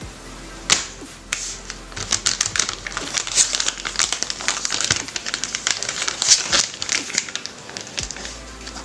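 Foot peeling mask sachet crinkling as hands handle and turn it over, a rapid irregular run of crackles with a sharp crack just under a second in.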